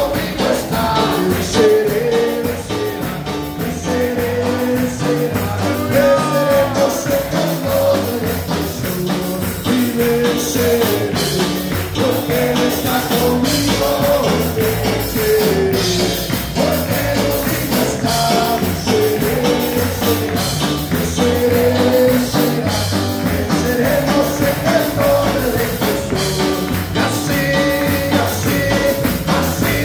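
Live church band playing an up-tempo Pentecostal chorus with a steady beat, with the congregation singing along and clapping.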